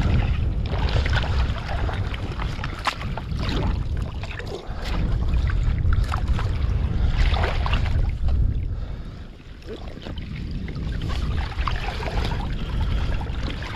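Wind buffeting the microphone in a steady low rumble, over water splashing and sloshing as a crab pot is hauled up out of shallow water on its rope.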